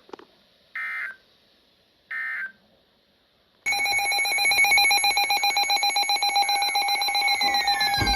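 EAS end-of-message data bursts: two short identical bursts of warbling digital tone about a second apart. After a second of quiet, a loud electronic alert tone starts, with several steady pitches and a fast flutter, and a falling sweep joins near the end.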